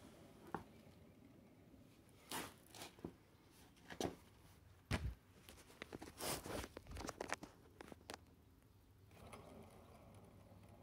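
Irregular rustles, scrapes and clicks of hands handling the camera and the mower wheel, with a few sharp knocks clustered in the middle seconds.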